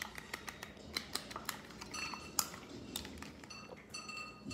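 Plastic spoon stirring a runny egg mixture in a ceramic bowl, clicking and scraping against the bowl in quick, irregular taps.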